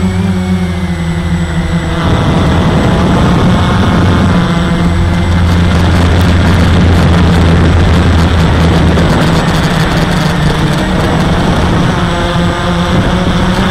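Walkera QR X350 quadcopter's four motors and propellers whirring up close, heard from the camera on the drone in flight. A rushing noise grows louder about two seconds in and eases off again near the end.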